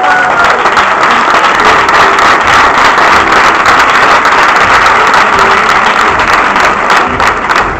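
Audience applauding loudly, a dense patter of many hands clapping, fading near the end.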